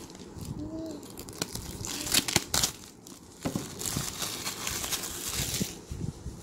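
Clear plastic shrink-wrap being torn and peeled off a paperback book by hand, crinkling and crackling. There are sharper tearing snaps around two seconds in and again between four and six seconds.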